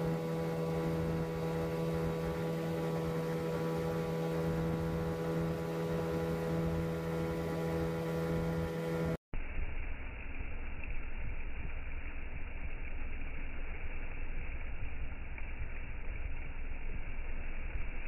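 Boat motor running at a steady pitch. About nine seconds in the sound cuts abruptly to a duller, steady rushing noise.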